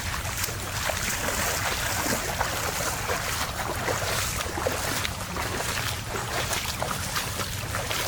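Floodwater running over normally dry ground, with splashing and sloshing from boots wading through water deep enough to come over a boot.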